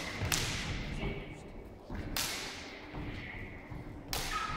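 Polycarbonate lightsaber blades clashing in sparring: four sharp cracks about two seconds apart, the last two close together near the end, each ringing out in the echo of a large hall.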